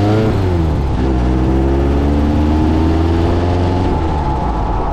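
1600cc air-cooled VW flat-four engine of a dune buggy pulling under way. Its pitch drops sharply just after the start, as at an upshift, then climbs steadily for about three seconds before levelling off near the end.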